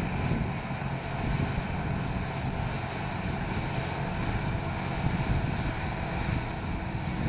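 John Deere 7250R tractor's six-cylinder diesel engine running steadily under load while pulling a mounted plough through the soil, with wind buffeting the microphone.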